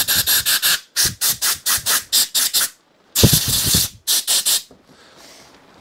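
Cloth rag rubbing briskly over a metal carburettor body in quick repeated strokes, with a short burst of hiss a little after three seconds in.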